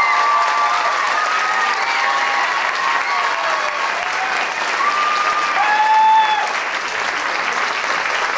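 Theatre audience applauding, with drawn-out shouted whoops and cheers rising over the clapping every second or two.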